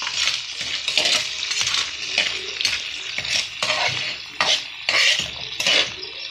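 Metal tongs stirring crabs and crayfish in a metal pan: shells and tongs scrape and knock against the pan about twice a second, over a steady sizzle of frying.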